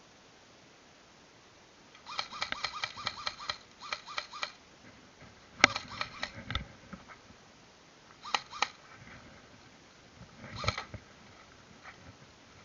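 Airsoft gunfire: a rapid string of sharp shots at about five or six a second, then one loud single crack followed by a few more, a quick pair of shots and a short burst near the end.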